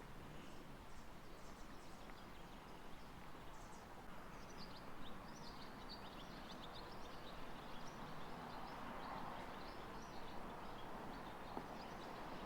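Faint outdoor ambience with small birds chirping: a run of short, high chirps that starts about a third of the way in and carries on over a steady low hiss.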